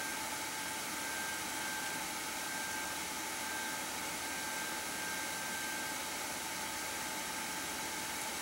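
Steady whir of a Pentium III desktop computer's cooling fans running while it boots, with a faint steady high tone that comes and goes.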